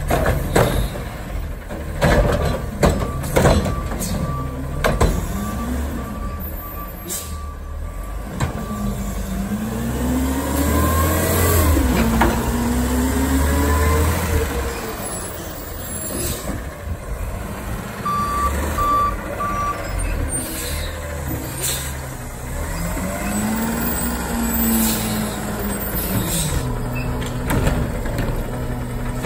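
Diesel front-loader garbage truck with a Curotto-Can arm working a curbside pickup. Its engine revs up and down twice to drive the hydraulics as the arm lifts the trash cart over the cab, empties it and lowers it again. Sharp clanks and air-brake hisses come early on, and a few reversing beeps sound midway.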